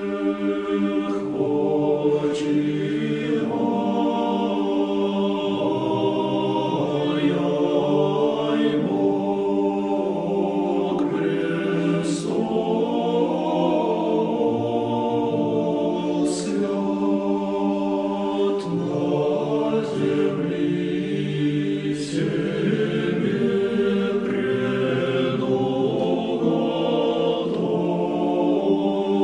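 Russian Orthodox church choir singing a slow a cappella chant in long held chords, with the hissing consonants of the sung words standing out now and then.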